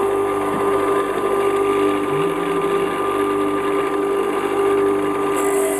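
Bench grinder running steadily at speed, its single-phase induction motor giving an even hum with a few steady tones and no load on the wheel.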